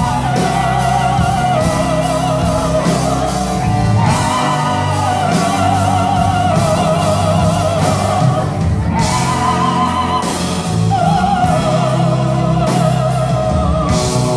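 Live blues band playing, with voices singing long wavering notes in phrases of a few seconds over drums with regular cymbal strokes, double bass and electric guitars.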